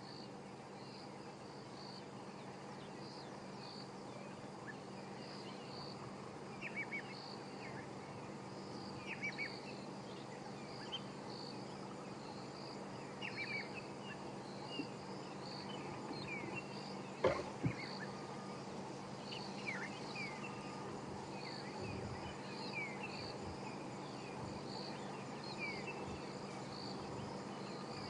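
Insects chirping in a steady, evenly repeating pattern, with scattered short bird chirps over a low steady hum. A single sharp knock comes about seventeen seconds in.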